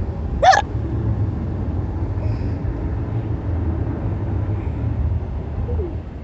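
A single sharp hiccup about half a second in, over the steady low rumble of a car's cabin on the move.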